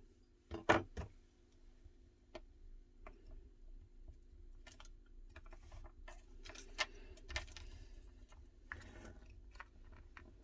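Scattered small clicks and taps of hand tools on phone parts as the earpiece speaker and proximity sensor assembly is worked off an iPhone 12 screen, with a cluster of louder clicks about a second in.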